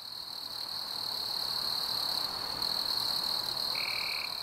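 Steady high-pitched insect chirring over a soft hiss that swells and fades, with a short steady tone near the end.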